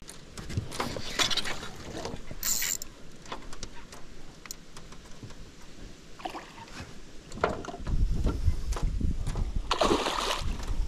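A hooked peacock bass splashing and thrashing at the surface beside an aluminium boat, strongest about ten seconds in. Light clicks and knocks of tackle against the boat come earlier, and a low rumble joins in during the second half.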